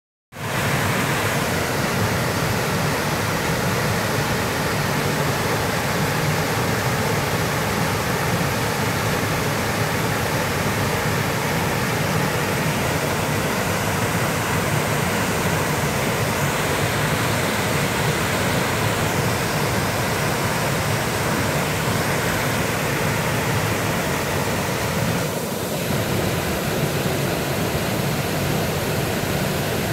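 Small waterfall pouring over a rock ledge into a pool: a steady rush of falling water.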